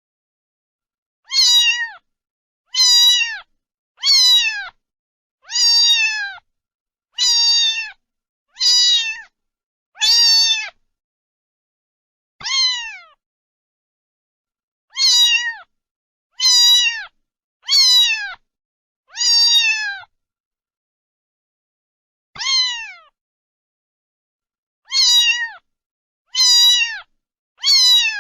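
Domestic cat meowing over and over, about sixteen short meows each falling in pitch, coming in quick runs with a couple of brief pauses.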